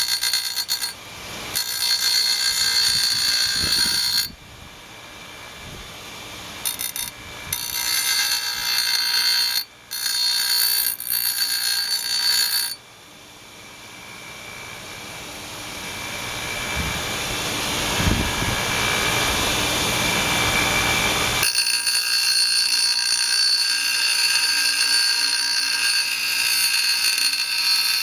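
Steel bolster at the back of a chef's knife being ground down on a power grinder: a high-pitched, ringing metal-on-abrasive grinding sound. It comes in bouts as the knife is pressed on and lifted off, then runs steadily through the last several seconds. The grinding thins the bolster so the edge can be sharpened all the way to the heel.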